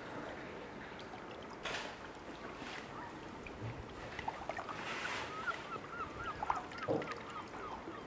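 Waterfowl calling: a run of short, repeated calls, about three a second, starting about halfway through, over wind and lapping water with a couple of brief gusts.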